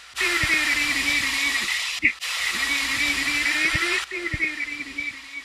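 A steady, whirring hum like a small motor, which cuts out abruptly twice and starts again each time.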